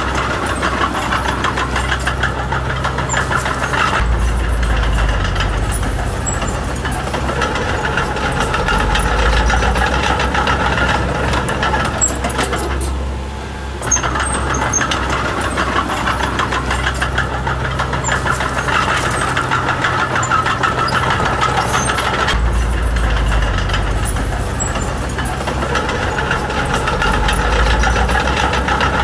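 Diesel engine of a small crawler bulldozer working, its low note swelling and easing every few seconds as the load changes, over a steady fine clatter. It eases off briefly about halfway through.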